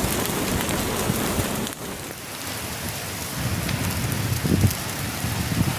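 Heavy rain pouring steadily, with a brief drop in level about two seconds in and low gusts of wind buffeting the microphone in the second half.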